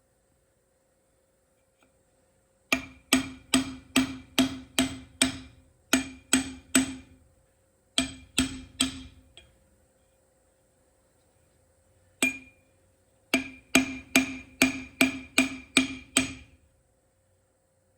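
Hammer blows on a metal part of a truck steering column, in runs of steady taps about two to three a second, each giving a short metallic ring. There is a run of about ten, then three, a single blow, and another run of about nine.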